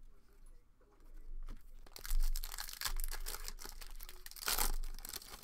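Foil wrapper of a Topps baseball card pack being torn open and crinkled in the hands. Crackling begins about two seconds in and is loudest twice, the second time near the end.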